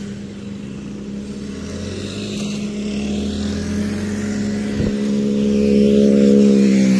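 Motorcycle engine running with a steady, even drone that grows louder over the last few seconds.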